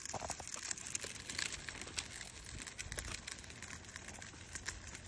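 Irregular crackling and rustling from walking along an asphalt path while pushing a stroller: small wheels rolling over the rough surface, with footsteps and handling noise from the phone.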